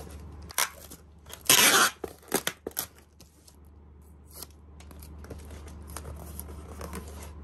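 Clear packing tape being ripped from a cardboard box. There is one loud rip of about half a second, a second and a half in, amid scratching, clicking and handling of the cardboard, over a steady low hum.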